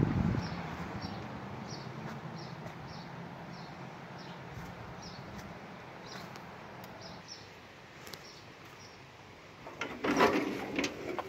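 A bird chirping over and over, short high notes about twice a second, over a low rumble that fades away over the first few seconds. About ten seconds in there is a brief, louder burst of rustling and knocking.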